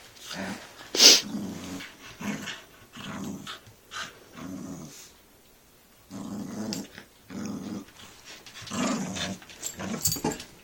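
Dog growling over a toy in short repeated bursts, with a pause about halfway through. A single sharp, loud sound comes about a second in.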